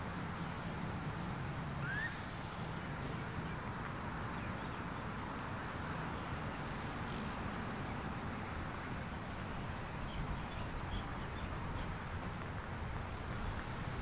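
Steady outdoor background noise with a low hum of distant traffic, and a few brief bird chirps: one short rising chirp about two seconds in and several faint high ones around ten to eleven seconds.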